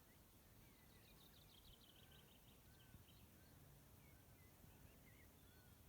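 Faint birdsong over quiet open-air ambience: a rapid high trill about a second in, and short whistled calls scattered through.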